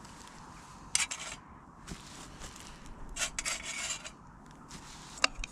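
Camp cooking gear being handled: short rubbing and scraping noises, with a sharp click near the end.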